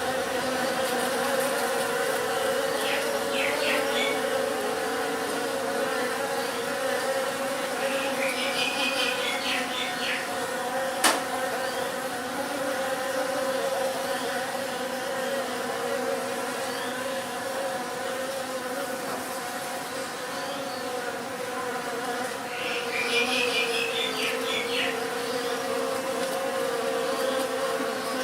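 A swarm of bees buzzing in a steady, continuous drone. A few short, high trills sound over it now and then, and there is one sharp click about eleven seconds in.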